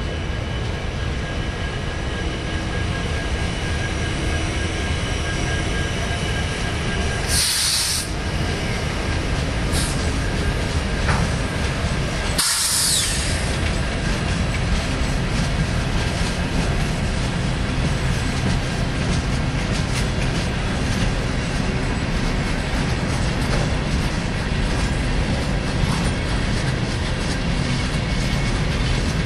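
Union Pacific freight train's gondola cars rolling past, a steady loud rumble of wheels on rail. Two brief high-pitched hisses come about five seconds apart, a third of the way in.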